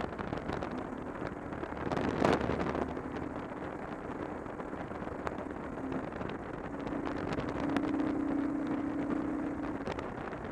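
Wind rushing over the microphone while riding a cruiser motorcycle at steady road speed, with the engine's steady running note underneath. A loud gust of wind hits about two seconds in.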